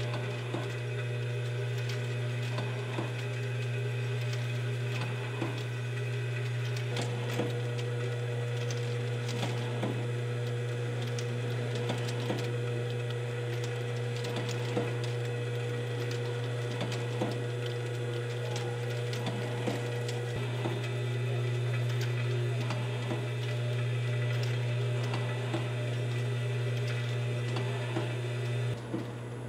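Cozzoli FSV50 vial filling and stoppering monoblock running: a steady low hum with a continual patter of small mechanical clicks and ticks from the feeding and stoppering mechanisms.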